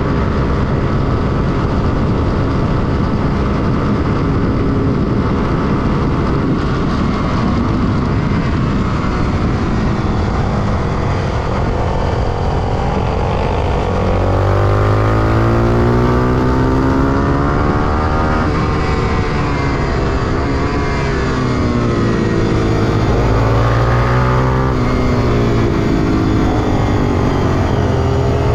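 Honda XR250 Tornado supermoto's single-cylinder engine at speed, heard onboard with heavy wind rush over the microphone. After about ten seconds the engine pitch begins rising and falling again and again as the rider works the throttle and gears through the corners.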